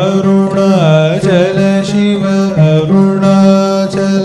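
Carnatic-style devotional background music: a melody of long, sliding held notes over a steady drone.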